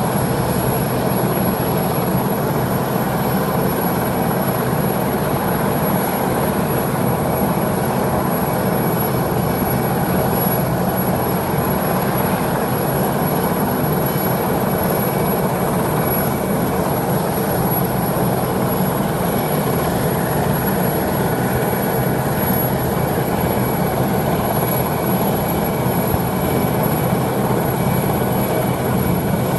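Westland Sea King rescue helicopter running on the ground with its rotors turning: a loud, steady turbine whine over rotor noise that does not change.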